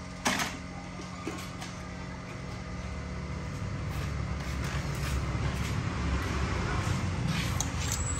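Low rumble of a motor vehicle engine running nearby, swelling over several seconds and dropping away near the end, with a light knock or two near the start.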